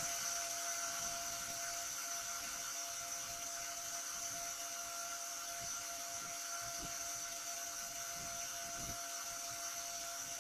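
Small electric cooling fan whirring steadily, with a thin, constant high whine over a light hiss.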